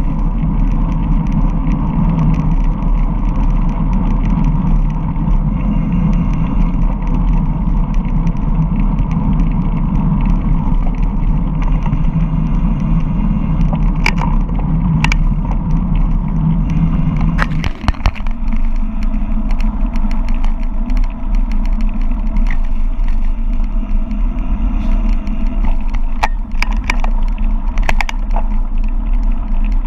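Mountain bike descending fast on a rough dirt road: steady wind rumble on the microphone with tyre noise, and scattered clicks and rattles as the bike hits rocks. The low rumble eases a little just after a cluster of sharp knocks, about two-thirds of the way in.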